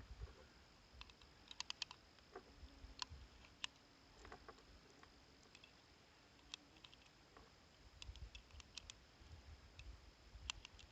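Faint, irregular clicks of 9mm cartridges being pressed one by one into a Sccy DVG-1 pistol magazine.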